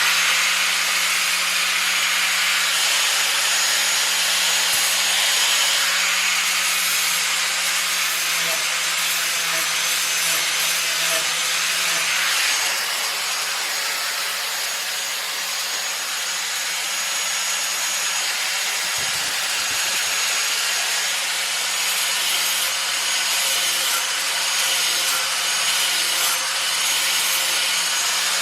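Hand-held grinder with a flap wheel running steadily against the steel of a Toro 22-inch mower blade: a continuous abrasive hiss over the motor's steady whine. The wheel is smoothing the blade's back side, laying down the burrs raised where the blade has struck things.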